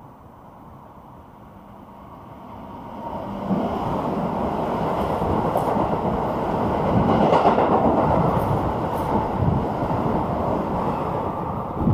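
Keikyu electric train passing through the station at speed without stopping. Its noise swells from about two seconds in, turns loud about three and a half seconds in, and is loudest a little past the middle as the cars run alongside.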